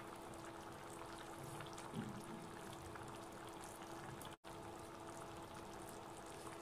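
Snakehead fish and bottle gourd curry simmering faintly in a steel pan: a soft, steady bubbling hiss with a low steady hum under it. The sound drops out for an instant a little over four seconds in.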